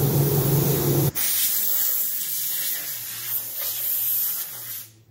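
A low machine drone that cuts off abruptly about a second in, followed by a steady hiss of rushing air that fades away near the end.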